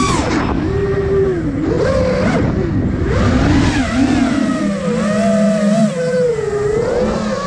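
Brushless motors and propellers of a five-inch iFlight Nazgul Evoque F5 FPV quadcopter whining close up, the pitch following the throttle. It falls from a high peak right at the start, then wavers up and down through the rest, over a low rush of wind.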